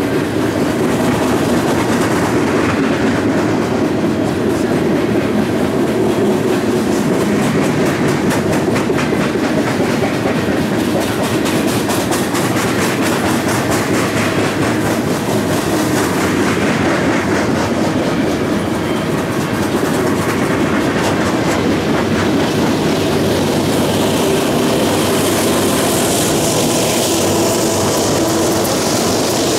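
Loaded freight hopper cars rolling past close by: a steady heavy rumble of steel wheels on rail with a continuous clickety-clack of wheels over rail joints. Near the end the noise swells as mid-train diesel locomotives come alongside.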